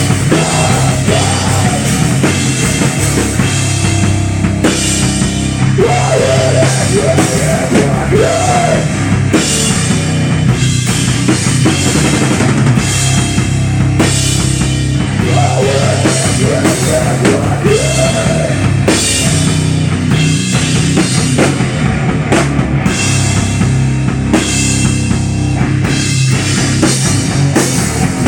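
Live rock band playing: distorted electric guitar, bass guitar and a drum kit with kick drum and cymbals, loud and dense, with a wavering melody line that comes in and out several times.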